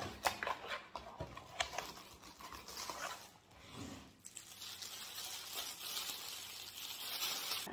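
A small cardboard box being opened and handled, a run of clicks and taps from the flaps, then a plastic bag crinkling steadily from about four seconds in as the pop filter inside it is turned over.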